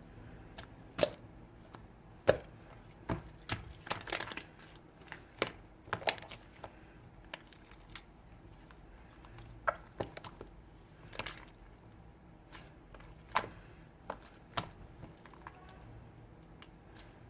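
Black slime being handled and pressed: irregular sticky clicks and small air-bubble pops, the loudest about a second in, at about two seconds and near thirteen seconds.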